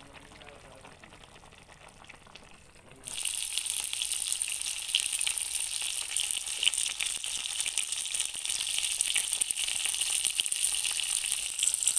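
Fish steaks frying in hot oil in a wok: a dense, steady sizzle with crackling that starts abruptly about three seconds in, after a faint stretch.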